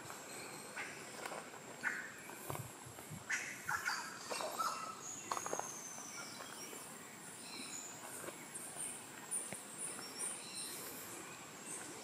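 Tropical rainforest ambience with several birds calling in short chirps and whistles, including a falling whistle about halfway through and a quick run of high notes near the end. Footsteps crunch on a dirt trail.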